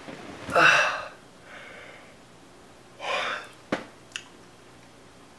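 A man's short, sharp breaths through the nose and mouth, three of them, the first about half a second in and the loudest. A sharp click follows just before four seconds, then a smaller one.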